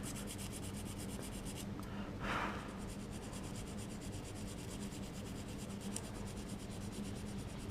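Sanding stick rubbing lightly on a resin model part, smoothing freshly cured light-curing putty: a faint, even scratching with one slightly louder stroke about two seconds in. A steady low hum runs underneath.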